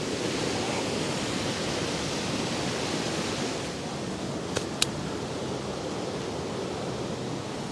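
Steady rush of a fast-flowing waterfall cascade, with two sharp clicks about four and a half seconds in.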